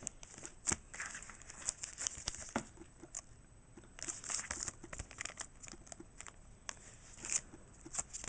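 Foil booster pack wrappers crinkling as they are handled, a run of irregular short crackles.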